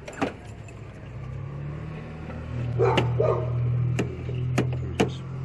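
A dog barks twice in quick succession about three seconds in, over a steady low engine hum that grows louder, with a few sharp clicks.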